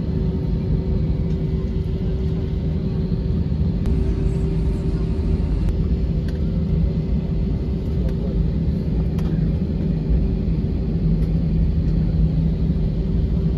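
Steady low rumble of a jet airliner's cabin while it taxis, its engines and air system running, with a steady droning hum.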